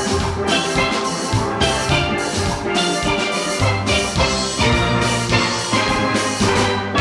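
Steel orchestra playing: many steelpans strike a melody and chords over sustained bass pan notes, with drum-kit percussion keeping a steady beat.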